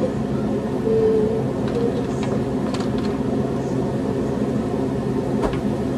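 Steady low mechanical hum of a running kitchen appliance, with a faint click about five and a half seconds in.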